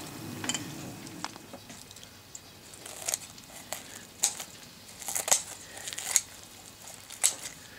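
Crisp cornmeal-crusted skin of a rotisserie-roasted chicken crackling and crunching as kitchen shears cut through it, in several sharp crunches spaced about a second apart.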